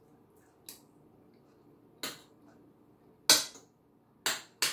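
Metal fork and spoon clinking against a ceramic plate while eating: about five short, sharp clinks spread over a few seconds, the one in the middle the loudest.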